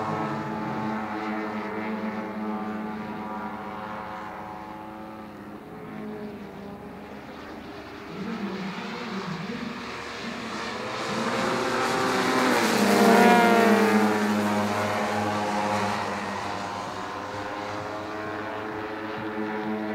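Engines and propellers of radio-controlled aerobatic model planes flying together, their pitch constantly rising and falling as they manoeuvre. The sound grows to its loudest about two-thirds of the way through, with the pitch bending as the planes pass close, then fades back.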